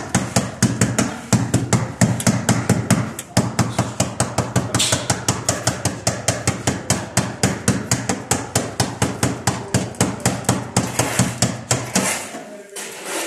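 Rapid, even knocking like hammering, about five strikes a second, over a steady low hum; it stops abruptly near the end.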